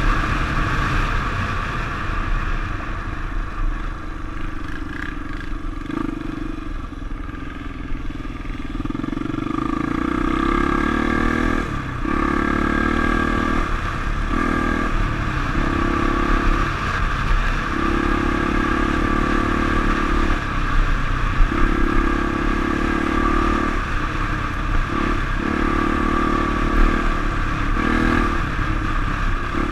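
Honda XR350's single-cylinder four-stroke engine running on a dirt bike under way, heard from the rider's own machine. It runs steadier and softer for the first several seconds, then the throttle is opened and closed again and again in spells of one to three seconds.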